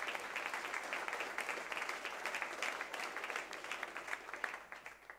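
Audience applauding: dense clapping from many hands, fading away near the end.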